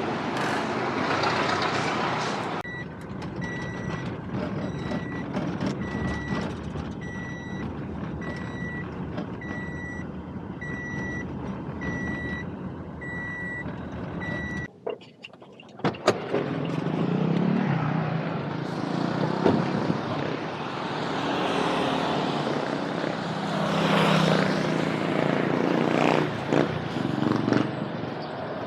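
A vehicle's reversing alarm beeping about once a second over a running engine, stopping at a sudden cut about fifteen seconds in. After the cut comes louder vehicle rumble with scattered knocks.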